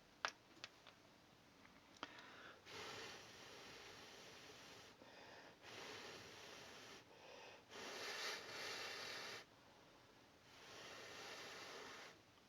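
Soft breathing close to the microphone: four long breaths a couple of seconds each, after a sharp click just after the start and a fainter one about two seconds in.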